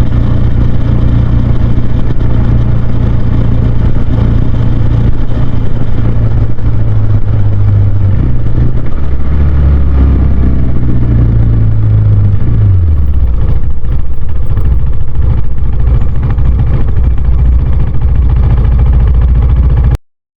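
Husqvarna Svartpilen 401's single-cylinder engine running on the move, loud and steady. Its note shifts lower and back a few times around the middle as engine speed changes. The sound cuts off suddenly near the end.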